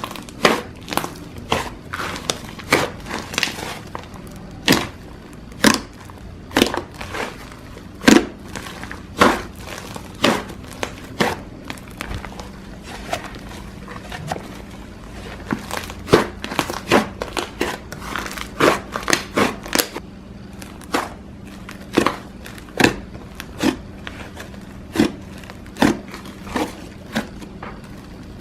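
Slime being squished and pressed by hand, giving a string of sharp pops and clicks at irregular intervals, one to three a second.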